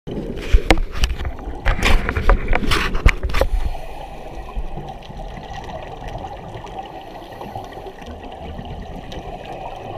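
Underwater sound of scuba divers' exhaled regulator bubbles, heard through a camera housing. It starts as loud, irregular gurgling with sharp clicks, then settles after about three and a half seconds into a steadier, quieter underwater rush.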